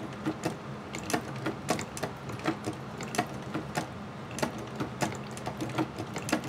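Singer 29-2 patcher sewing machine from 1895 stitching leather, with a regular clatter of about three stitch clicks a second over a low steady hum.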